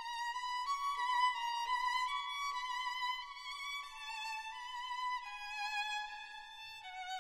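Background music: a solo violin playing a melody with vibrato, moving through held notes that step and occasionally slide between pitches.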